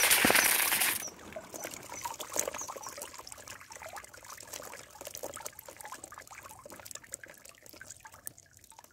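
Water and a catch of small fish, eels and crabs pouring out of a fishing net into a woven bamboo basket: a loud rush for about the first second, then water trickling and scattered small clicks and rustles as the live catch moves in the basket.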